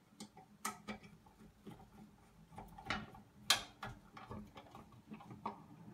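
Screwdriver turning a screw into a metal box cover: faint, scattered ticks and clicks, with a sharper click about three and a half seconds in.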